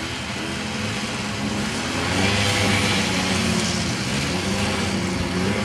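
Snowmobile engine running, getting louder about two seconds in as the sled pulls away across the snow.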